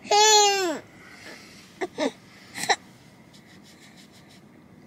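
A toddler lets out one short wail that falls in pitch while being given liquid antibiotic by oral syringe. Three brief sounds from her follow over the next two seconds, then the quiet hum of the car interior.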